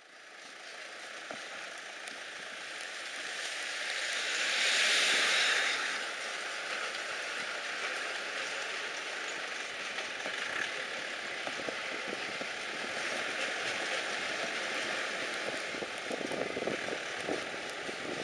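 Steady rushing road noise of a slow-moving vehicle on a lane, swelling louder for a couple of seconds about four seconds in.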